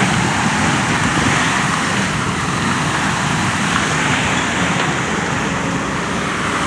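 Water from a burst water main gushing up out of the street, a loud, steady rushing.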